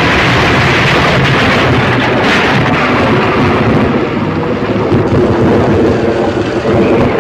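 Loud, steady rumbling crash noise of a car going off the road and tumbling down a slope, with no single clear impact standing out.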